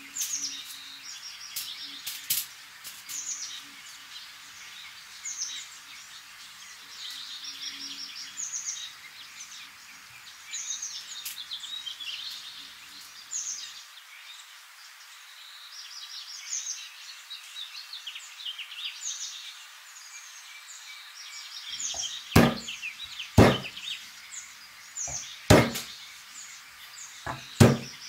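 Small birds chirping and twittering throughout. Over the last six seconds, about five sharp knocks of a knife on a wooden cutting board as garlic cloves are cut.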